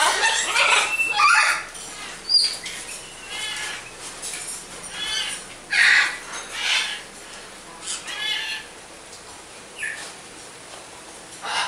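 Captive parrots squawking: a string of short calls about one a second, some overlapping, loudest in the first second and a half and again about six seconds in.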